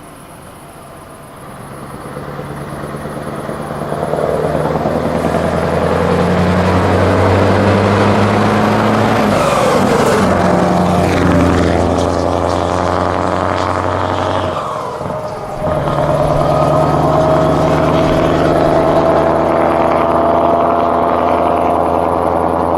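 Scania truck with an open, straight-through exhaust pipe driving past: the engine note grows loud as it approaches and its pitch bends as it goes by. About fifteen seconds in the engine note drops out briefly, as in a gear change, then picks up again with a slowly rising pitch.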